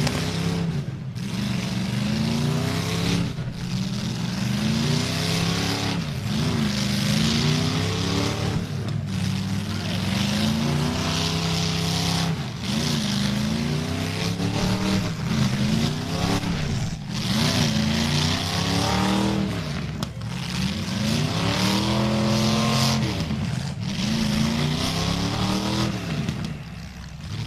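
Demolition derby car engines revving hard, their pitch rising and falling again and again as the cars back up and charge.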